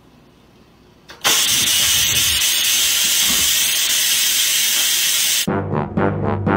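Loud, steady hiss of steam blasting from an electric cooker's pressure-release vent, starting about a second in and cutting off suddenly near the end. Brass-heavy music starts right after it.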